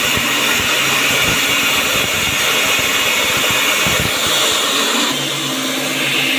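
Electric diamond core drill on a rig stand running steadily, its water-fed core bit boring into a reinforced concrete wall, dipping slightly in level about five seconds in.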